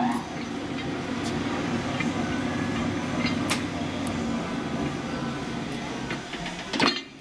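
Hobart P-660 60-quart commercial mixer running with its dough hook turning in an empty stainless bowl: a steady motor and gearbox hum with a few light clicks. A clunk near the end, after which the hum drops away as the mixer is stopped.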